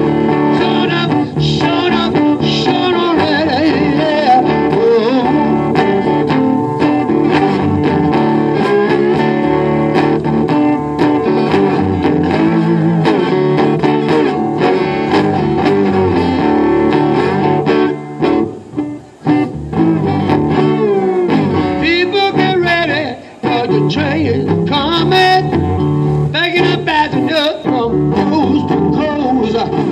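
Solo blues guitar instrumental break, picked notes that bend and waver, with a couple of brief pauses in the playing.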